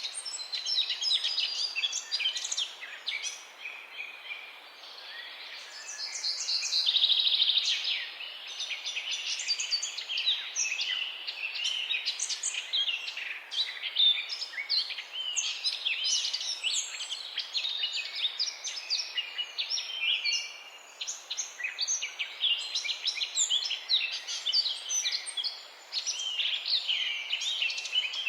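A chorus of morning birds chirping and singing, with many short, quick, overlapping high chirps and a fast trill about seven seconds in.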